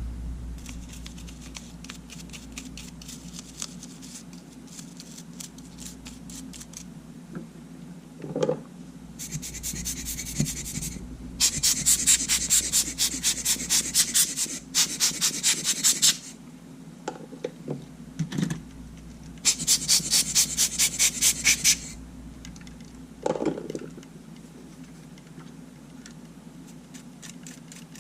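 Rapid scratching strokes against a small camera body, in three bursts of a few seconds each. A few light knocks fall between them.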